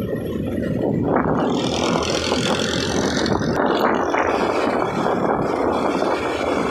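A vehicle on the move: steady, rough engine and road noise.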